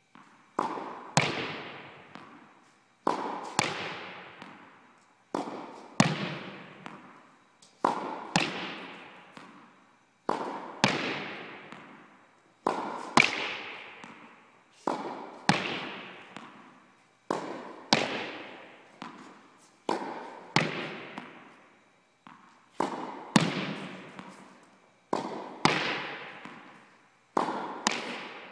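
Tennis ball impacts, bounce and racket strike, on a tennis court: sharp hits in pairs about half a second apart, repeating every two to two and a half seconds, each ringing out in a long echo.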